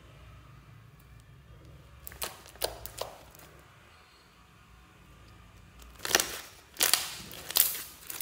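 Thick green slime being stretched and squeezed by hand, making sharp crackles and pops as air pockets in it burst: a few small ones about two seconds in and a cluster of louder ones over the last two seconds.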